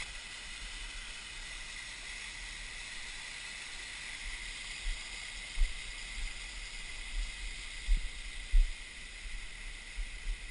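Steady rushing hiss of Hickory Nut Falls' water pouring down the rock face. Several low bumps hit the microphone in the second half.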